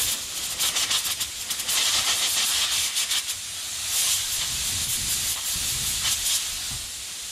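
Compressed air hissing from a trigger air blow gun, blowing grime off a wire-brushed spark plug.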